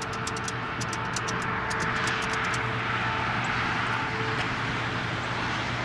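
Road traffic: a steady wash of passing cars that swells as a car goes by about two seconds in, with a run of light clicks over the first few seconds.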